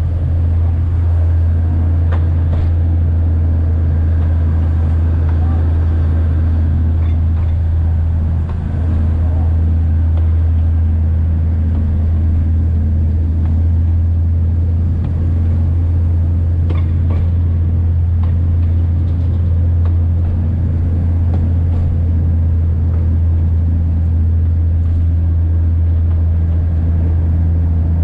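Diesel train engine running with a steady low drone, and a few light clicks now and then.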